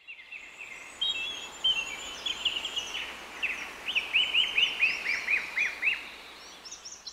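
Birds chirping over a steady background hiss, with a quick run of repeated chirps, about four a second, in the middle.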